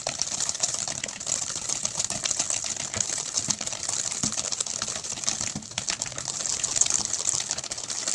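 Wire balloon whisk beating a creamed butter, sugar and egg mixture by hand in a stainless steel bowl: a fast, continuous clatter of the wires tapping and scraping the bowl as the batter is whipped until foamy.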